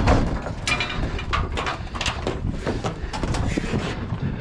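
Irregular clunks, knocks and scraping of heavy scrap being shifted around, over a low rumble, with a brief squeak just under a second in.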